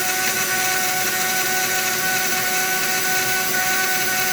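Small DIY CNC mini mill's spindle running, its two-flute end mill slowly cutting a slot into a cast-metal model train chassis. It makes a steady, noisy whine of several even tones over a hiss, with no change in pace.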